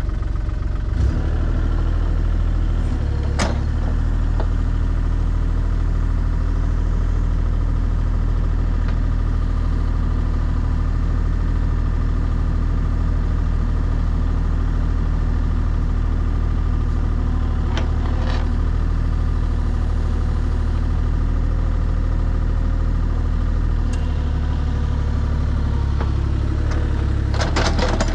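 Excavator's diesel engine running steadily while it digs a trench, with a few sharp clanks from the bucket, and a burst of rattling and clanking near the end.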